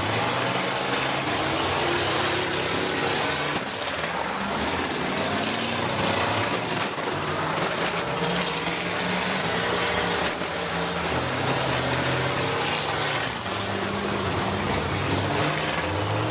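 School bus engines in a demolition derby, several at once, revving up and down as the buses drive and ram each other, with a few short thuds of impact.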